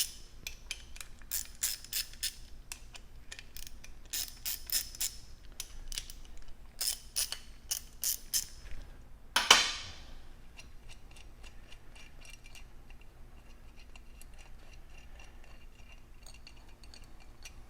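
Hand ratchet with a 1/2 inch socket clicking in quick runs as it backs out the bolts on a gas regulator's spring tower cap. A louder metallic clank comes about halfway through, followed by a longer stretch of fainter, fast ratchet clicking.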